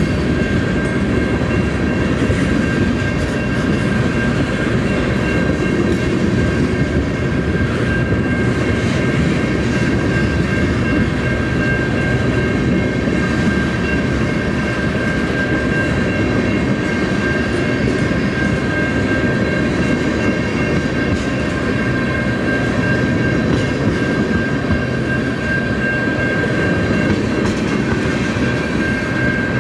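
Freight train of tank cars rolling steadily past at close range, its wheels clattering over the rails in a continuous rumble. A thin steady high-pitched tone runs on top of the rumble.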